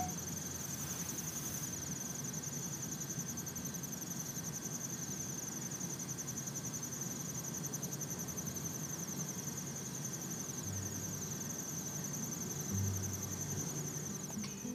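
Field recording of crickets trilling steadily: one continuous high, finely pulsing note. Faint low tones come in near the end.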